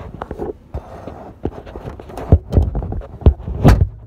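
Irregular knocks and clatter of an HP Laser MFP printer's plastic covers and casing being handled and pushed into place, with the loudest knocks about two and a half and three and a half seconds in.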